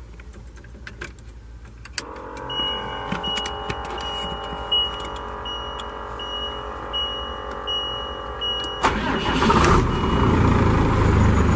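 Turbo-diesel 12-valve Cummins six-cylinder in a 1988 Ford L700 being started: a steady whir of cranking for several seconds, with a warning buzzer beeping about twice a second. About nine seconds in the engine fires, gets louder, and runs with a loud diesel clatter.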